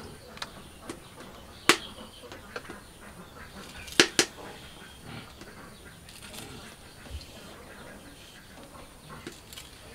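Knife cutting and snapping vegetable stalks by hand: scattered sharp clicks and snaps, the loudest about two seconds in and a close pair about four seconds in, over a faint steady high whine.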